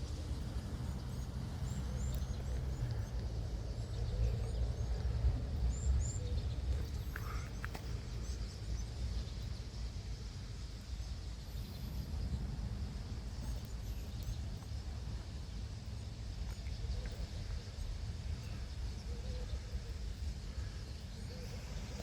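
A large flock of birds swarming close by: a steady rushing of many wings with a few faint high chirps, strongest over the first six seconds and then easing.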